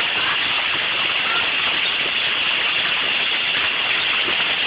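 Hail coming down hard and steadily, a dense hiss made of countless small hits.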